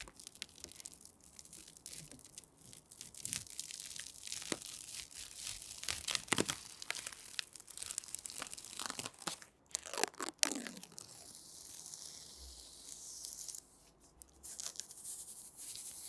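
Clear protective plastic film being peeled off a 3D printer's glass door and front panel: irregular crackling, crinkling and tearing, with one longer, smoother peel a little past the middle.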